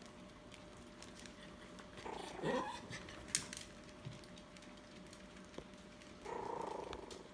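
Dog whines: a short whine that rises and falls about two seconds in, and another one near the end, with a sharp click between them.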